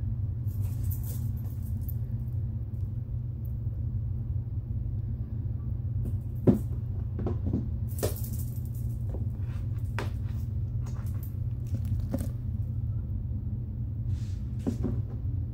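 Steady low background hum under scattered light clicks and knocks from slime and its container being handled, mostly in the second half.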